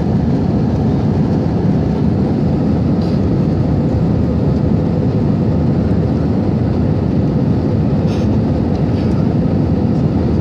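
Steady roar of a jet airliner's engines and airflow heard inside the passenger cabin during the climb after takeoff, with a faint steady hum running through it.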